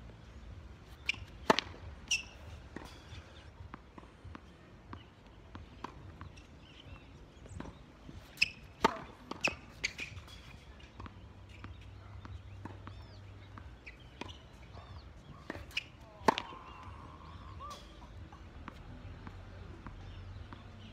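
Tennis ball bouncing on a hard court and being struck by a racket on serves: sharp single hits in three groups, about a second in, around eight to ten seconds in with evenly spaced bounces about half a second apart, and again around sixteen seconds in.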